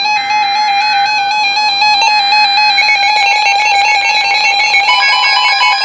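A NOAA Weather Radio receiver sounding its electronic alert for a severe thunderstorm warning: loud, steady electronic tones with small steps in pitch, and a further tone joining about five seconds in.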